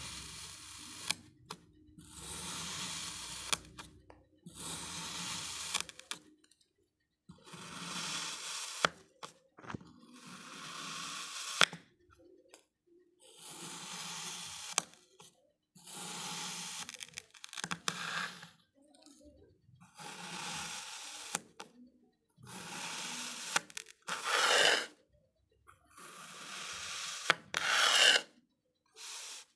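Knife slicing through packed kinetic sand, a dozen or so slow cuts, each a grainy crunching hiss about a second long. Some cuts end in a sharp tap.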